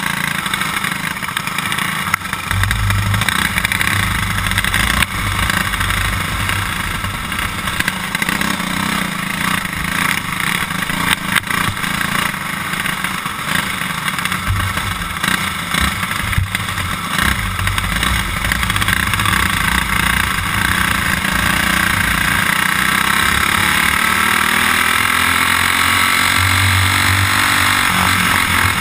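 Onboard sound of a racing kart's small single-cylinder engine running hard around a lap. Its pitch drops and climbs again as the kart slows for the corners and accelerates out, and it rises steadily over the last few seconds.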